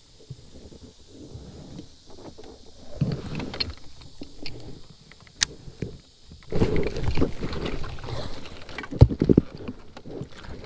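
Irregular knocks, clicks and rustling from an angler handling gear and moving in a plastic fishing kayak. It is quieter at first and busier from about two-thirds of the way through, with one sharp knock near the end.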